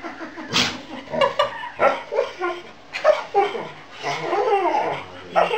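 Dog 'talking': a run of whining, grumbling vocalizations that slide up and down in pitch, with a short sharp noisy burst about half a second in.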